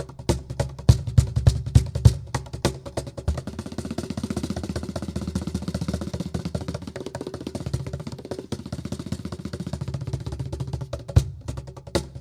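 Live hand-percussion solo on a cajón with self-built tabla-like and bongo sounds and a shaker. It opens with sharp strikes over deep bass beats, breaks about three seconds in into a fast, dense roll of lighter strikes, and strong bass beats return near the end.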